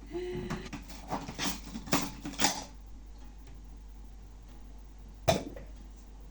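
Knife slicing onions, a quick run of sharp knocks against the cutting surface, then one louder knock about five seconds in. A short pitched sound comes right at the start.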